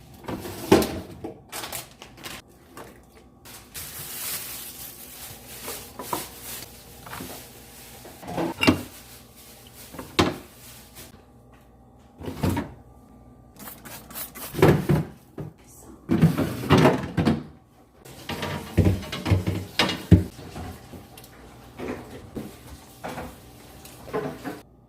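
Irregular clunks, knocks and rattles of a refrigerator's drawers, shelves and containers being pulled out, handled and put back.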